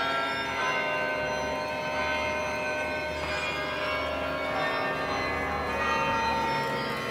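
Church bells of St. Peter's in Leuven ringing continuously, many overlapping bell tones sounding together and sustaining.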